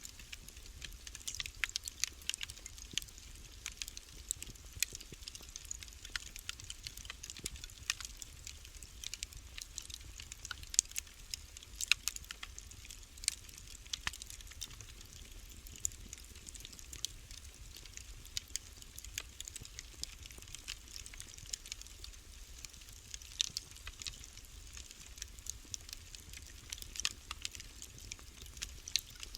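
Wood fire burning in a fireplace, crackling with a steady stream of irregular sharp pops over a low steady rumble.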